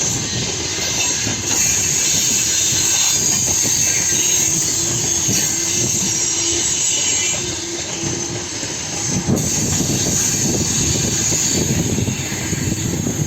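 Freight train cars rolling past steadily, their wheels clattering over the rails, with a faint squeal held for a few seconds about halfway through.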